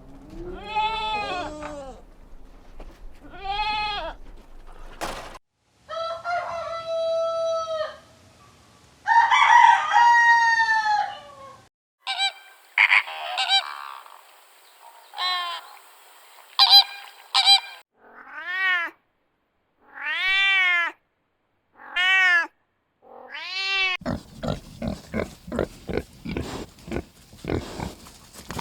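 A string of loud animal calls, one after another with short gaps: pitched calls that rise and fall in pitch, some longer and held, and near the end a run of rapid pulsing calls.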